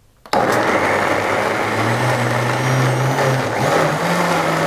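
Countertop jug blender switching on abruptly and running at full speed, grinding cooked white beans with a little water into a smooth purée. Its motor note steps up in pitch about three and a half seconds in.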